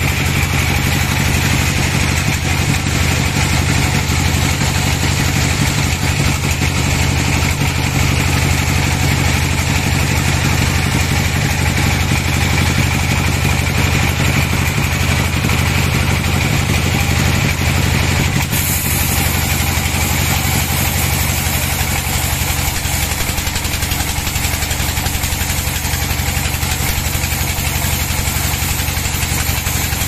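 Band sawmill running steadily with a loud, low machine hum. About 18 seconds in the sound shifts slightly, the hum easing and a higher hiss coming in.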